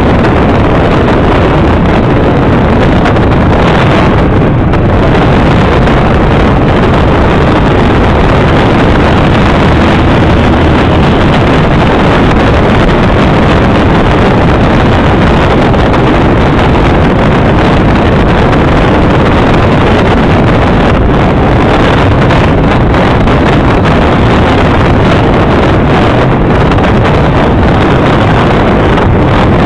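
Utility boat's engine running steadily and loud while underway, with wind buffeting the microphone.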